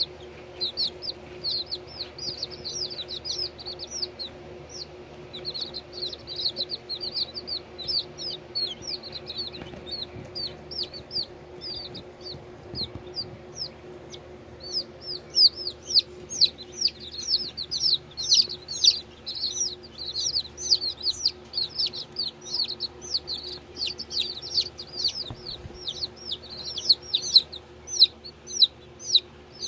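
Baby chicks peeping continuously in rapid, high, falling notes, growing busier and louder about halfway through, over a steady low hum.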